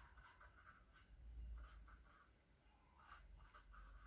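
Faint scratching of a marker pen writing on paper, in a few short groups of strokes.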